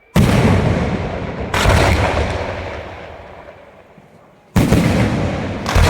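Fireworks exploding: four loud bangs, each followed by a rolling echo that fades over a second or more, with a longer gap between the second and third.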